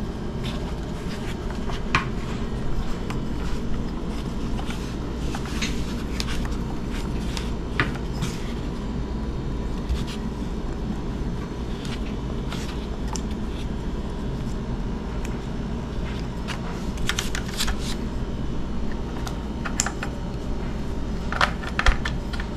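Scattered small plastic clicks and rustling as an airsoft battery's plug is connected and the battery and wires are pushed into the rifle's buffer tube, with a cluster of clicks near the end. A steady background hum runs underneath.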